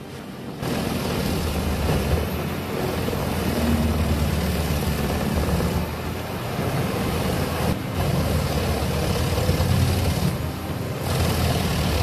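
Vermeer tracked horizontal grinder running under load, its diesel engine and grinding drum chewing up logs in a steady, dense rush of machine noise. It starts a little quieter, then holds steady with a few brief dips.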